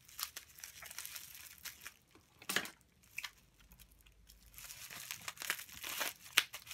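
Plastic bubble wrap crinkling as it is handled and its tape picked at, with a sharp crackle about two and a half seconds in; from about four and a half seconds, dense crinkling and snips as scissors cut the bubble wrap open.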